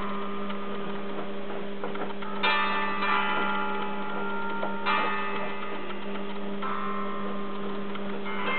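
Soundtrack music of bell-like chords, a new chord struck about every two seconds, over a steady electrical mains hum.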